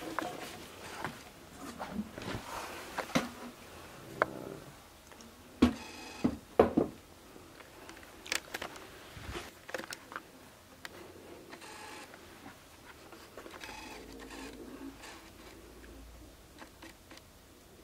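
Irregular soft knocks, taps and rustles, loudest about six seconds in, from a phone camera being handled close to a resting cat on a woven scratching pad.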